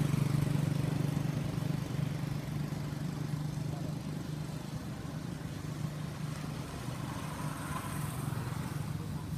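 A motor vehicle engine running steadily with a low hum, a little louder in the first couple of seconds and then settling.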